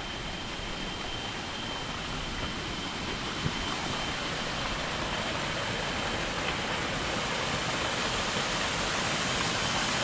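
A small waterfall and stream running over rocks: a steady rushing hiss of falling water that grows slightly louder.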